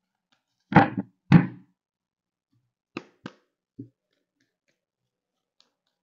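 A tarot deck being handled: two thumps in quick succession about a second in, then three lighter taps a couple of seconds later.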